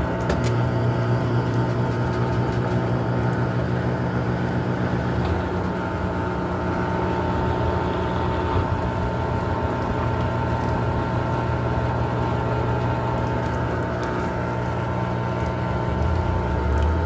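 Consul Maré 10 kg top-loading washing machine running while washing a rug: a steady motor hum with a constant high tone on top.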